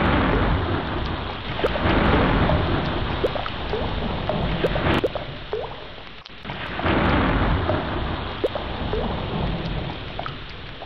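Steady rain with rolling thunder, the rumble swelling up near the start, again about two seconds in, and again around seven seconds.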